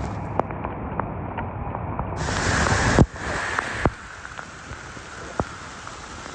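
Rain and wind noise with scattered drop ticks. A louder rushing swell builds about two seconds in and cuts off abruptly at about three seconds.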